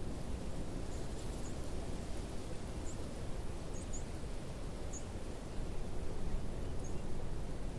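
Steady outdoor wind noise over open grassland, with a few short high chirps from a small bird scattered through.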